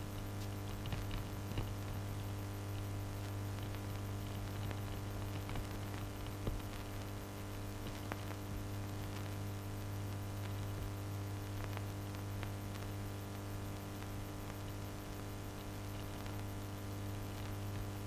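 Steady low electrical hum with faint, irregular clicks and crackles scattered through it, one a little louder about six and a half seconds in.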